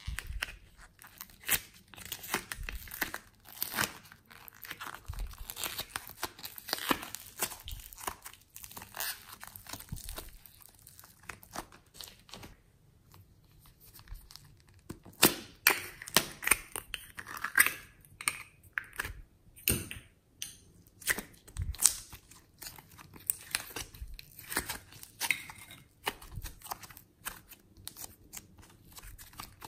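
Close-up crackling and tearing as clay and foam slime are pulled out of small plastic containers, with sharp clicks of the plastic cases and lids being handled. The sounds come in irregular quick bursts, with a brief quieter pause near the middle.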